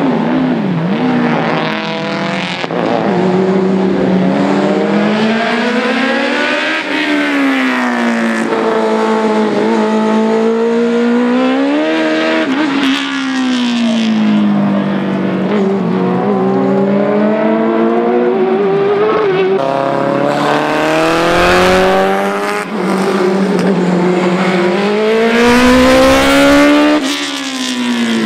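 A racing car's engine revving hard, its pitch climbing and dropping again several times as the car accelerates and lifts off through the course. It is loudest near the end as the car comes closest.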